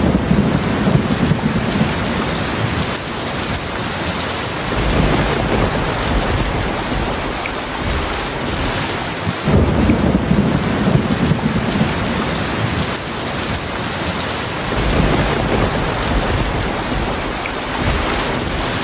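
Heavy rain falling steadily as a dense hiss, with rolling thunder rumbling low several times. The strongest rumble sets in about halfway through.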